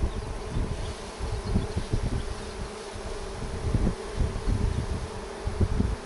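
Mass of honey bees buzzing steadily over their broken comb, a wild colony whose nest has fallen from a tree and been disturbed. Low irregular rumbles come and go underneath.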